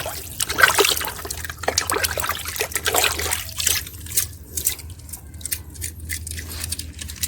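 Water splashing and trickling as a toy truck is washed by hand. It is busy for the first few seconds and then thins to scattered drips.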